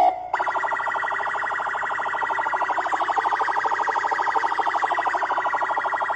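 Car sound system's horn drivers blaring a steady, very rapidly pulsing alarm-like buzz with no bass, starting a moment in.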